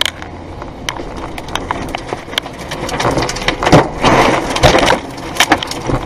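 Tornado wind and flying debris heard from inside a car: rain and debris strike the body and windscreen in many sharp knocks, and the wind noise swells to its loudest about three to five seconds in.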